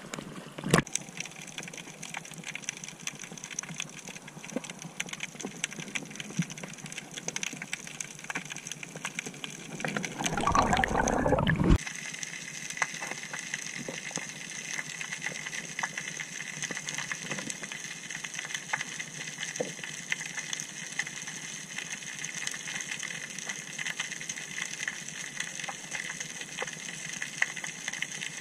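Underwater ambience: a constant crackle of small clicks over a steady hiss. About ten seconds in comes a louder burst of rushing, gurgling water lasting about a second and a half.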